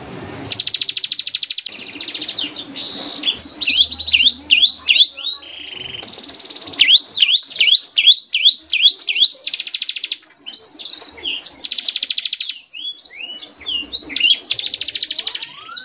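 Bar-winged prinia (ciblek) singing continuously: long, fast buzzing rattles alternating with runs of sharp, quickly repeated chip notes that sweep up and down, the rapid 'ngebren' and 'tembakan' style of song.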